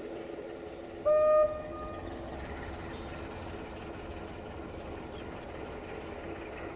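A short blast on a locomotive horn about a second in, one steady note lasting about half a second, over the steady hum of a diesel engine idling.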